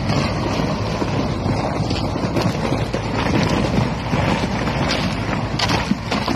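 KamAZ truck's diesel engine running steadily under load as it pushes through broken river ice and slush, with water sloshing and ice chunks grinding, and a few sharp cracks about two seconds in and near the end.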